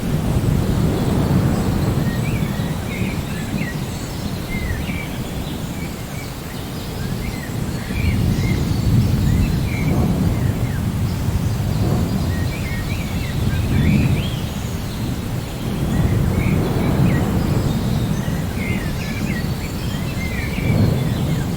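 Rain with a deep rumble of thunder that swells and fades every few seconds, and small birds chirping repeatedly over it.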